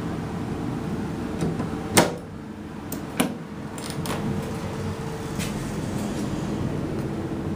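Mowrey hydraulic elevator car at a landing: a loud knock about two seconds in as the doors close, then a sharper click about a second later, over a steady hum.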